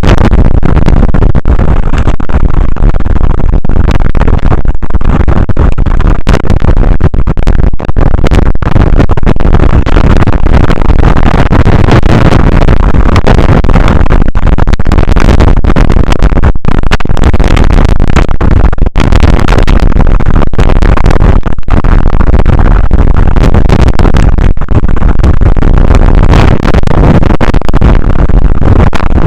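Strong wind blowing over the microphone: loud, distorted, steady rumbling noise, heaviest in the low end, with many brief dropouts.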